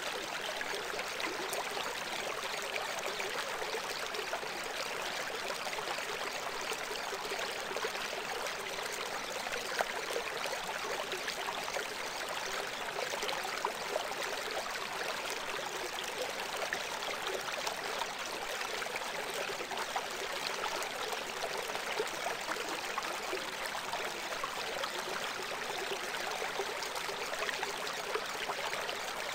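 Steady rushing of running water, like a flowing stream, even and unchanging, with almost no low end.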